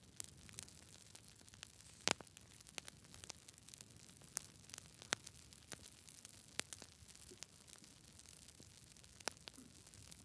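Campfire crackling: irregular sharp pops and snaps over a soft steady hiss, the loudest pop about two seconds in.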